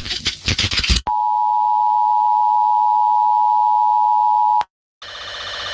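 Emergency broadcast alert tones: about a second of crackling static, then one steady, pure, high beep-like tone held for about three and a half seconds that cuts off abruptly. After a short silence, a buzzing, pulsing alarm tone starts and grows louder.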